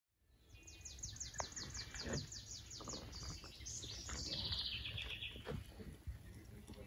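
A songbird singing: a quick series of high notes, about six a second, for a couple of seconds, then a dense warbling trill that slides slightly lower and stops about five seconds in. A low rumble and a few faint knocks lie underneath.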